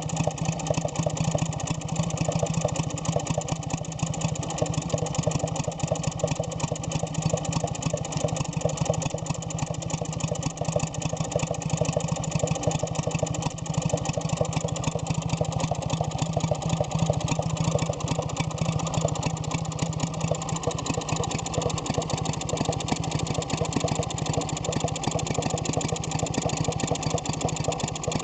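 A freshly rebuilt 1948–49 Villiers WX11 two-stroke, water-cooled stationary engine running at a steady speed, with a rapid, even firing beat. It has new piston rings, bearings and needle rollers.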